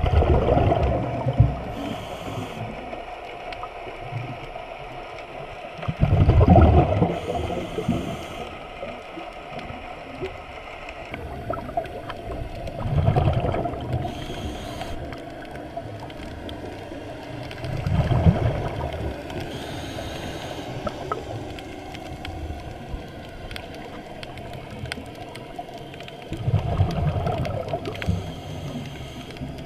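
Scuba regulator breathing heard underwater: a rumbling burst of exhaled bubbles about every six seconds, each lasting a second or two, with a short hiss of inhalation through the regulator between them.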